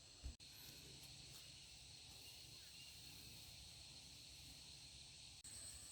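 Near silence: faint outdoor field background with a steady high-pitched whine. The sound drops out for an instant twice, once just after the start and once near the end.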